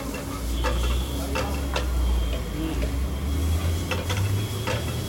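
Steel spatula scraping and knocking against a wide metal pan as it works through a large omelette of runny beaten eggs, in scattered strokes. A low, steady rumble runs underneath.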